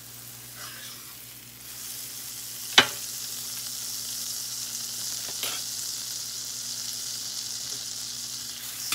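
Butter melting and sizzling in a hot Blue Diamond ceramic nonstick skillet, the sizzle getting louder a couple of seconds in. A sharp click comes a little after that, the loudest sound here, and a softer one follows a few seconds later.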